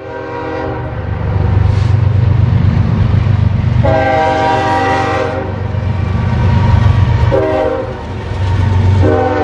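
Freight train led by BNSF diesel locomotive 7401 sounding its multi-chime air horn as it passes: a blast ending just as it begins, a long blast about four seconds in, a short one past seven seconds and another long one starting near the end, the long-long-short-long grade-crossing signal. Under the horn runs a steady low rumble of the locomotive diesels and the rolling railcars.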